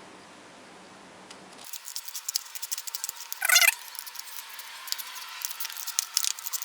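Scissors cutting through paper: a run of quick crisp snips and paper crackles, with one short high squeak about halfway through.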